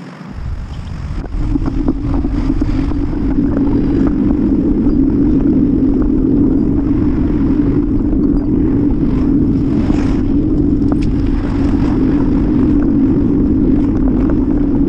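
Wind buffeting and road rumble on the microphone of a camera riding on a moving bicycle. It builds as the bike gets going over the first couple of seconds, then runs steadily, with a brief clatter about ten seconds in.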